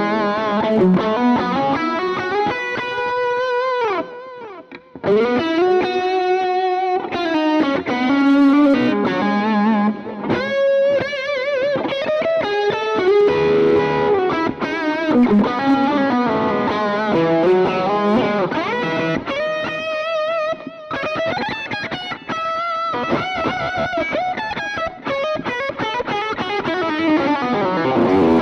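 Telecaster electric guitar played through a Cuvave Cube Baby mini amp, with effects, mostly single-note lead lines with wavering vibrato and string bends. The playing nearly stops for a moment about four seconds in.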